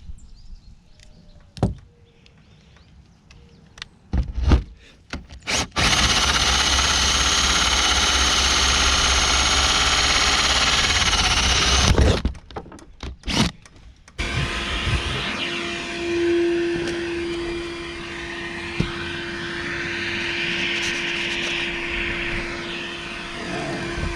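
A cordless power tool running in two long stretches: a loud steady run of about six seconds, then, after a few knocks, a second steady run with a humming tone that lasts to the end. Scattered clicks and knocks come before and between the runs as the tool is handled.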